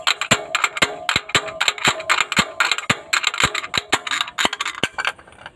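Homemade slide-hammer puller in the injector bore of a Cat 3116 diesel cylinder head, worked rapidly to pull out a broken injector sleeve. Its sliding weight clanks hard against the stop about four to five times a second, each strike ringing metallically, until it stops about five seconds in.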